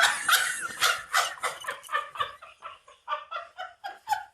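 A person laughing hard: a long run of quick pitched bursts, about three or four a second, that slowly fade out.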